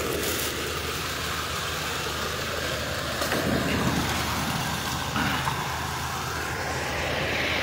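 Steady rush of fast-flowing floodwater running down a city street, over a steady low hum.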